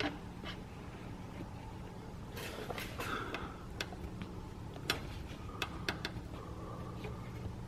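Faint handling noise of a video wire being pulled through plastic car interior trim: about ten scattered light clicks and ticks with brief soft scraping between them.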